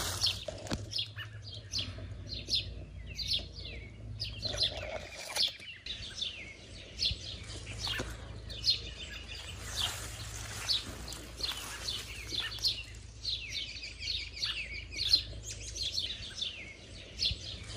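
Several songbirds chirping and singing: many short, high chirps that keep overlapping throughout.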